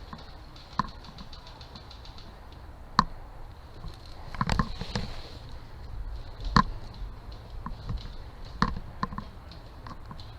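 Airsoft gun fired one shot at a time: several sharp cracks spaced irregularly, one to two seconds apart.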